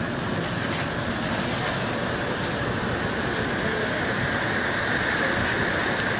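Propane-fired rotating-drum chile roasters running: a steady roar from the burners and turning drums with faint scattered clicks. It grows a little louder near the end.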